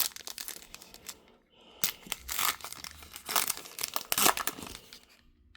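A trading card pack's plastic wrapper being torn open and crinkled by hand, in several short crinkly rips.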